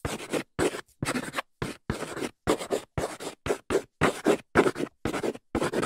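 Chalk scratching across a blackboard as letters are written: a run of short scratchy strokes, about two a second, with clean gaps between them.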